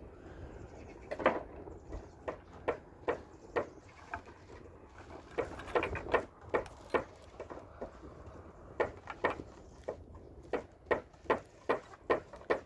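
Hammer driving nails into thin wooden roof boards: runs of sharp knocks, about two to three a second, with short pauses between runs.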